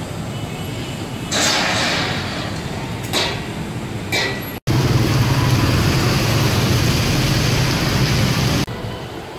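A steady city hum with a few brief rushes of noise, then, starting suddenly about halfway through, louder street traffic. Motorbikes and cars run past on a wet road with a strong low engine hum, cutting off shortly before the end.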